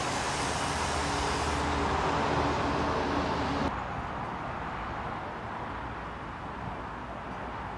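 An engine running steadily with a low hum, typical of construction machinery or a vehicle. About halfway through it drops away abruptly to a quieter rumble.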